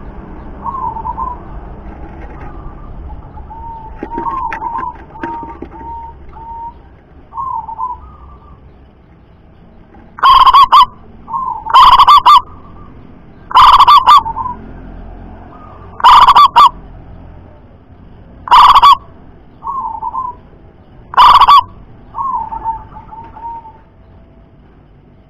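Zebra dove cooing: a few soft coo notes, then from about ten seconds in a run of six loud calls roughly two seconds apart, so loud they distort, with softer coos between them.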